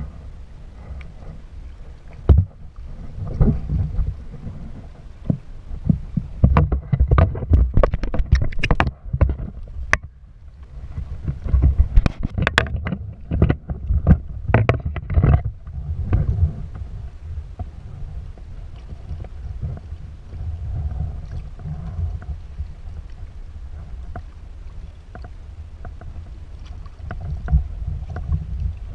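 Water slapping and splashing around a plastic fishing kayak, with a steady low wind rumble on the microphone. A hooked barracuda thrashing at the surface makes a run of sharp splashes and knocks in the first half, and the water is calmer near the end as the fish lies alongside the hull.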